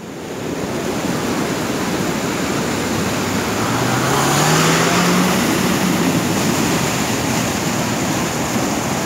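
Floodwater rushing across a road in a steady torrent. A vehicle engine note rises in pitch for a couple of seconds midway through, as the rush grows a little louder.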